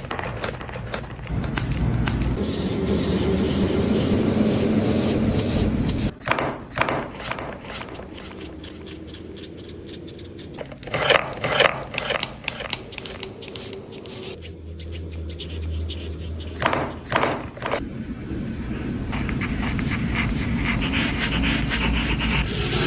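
Copic alcohol marker nibs rubbing across drawing paper in long colouring strokes, broken by clusters of sharp clicks as marker caps are pulled off and pushed back on. Near the end a pencil scratches across the paper.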